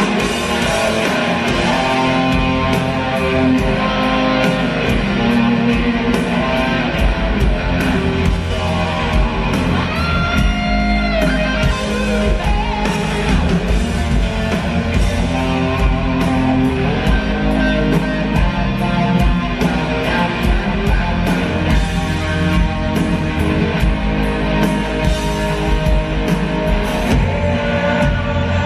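Live rock band playing loud: electric guitar over bass and drums, with a steady beat of drum hits. About ten seconds in, a long bent guitar note rises and falls.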